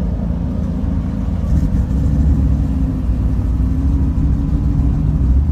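Vehicle engine running at low speed, a steady deep rumble that grows slightly louder about a second and a half in.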